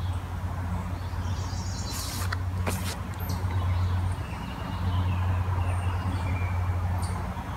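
Outdoor ambience: a steady low hum with faint bird chirps over it, and a couple of sharp clicks about two and three seconds in.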